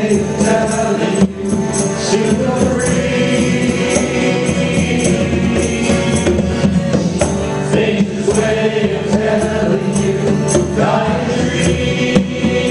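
Small acoustic band playing a song live: singing voices over conga drums and jingling hand percussion.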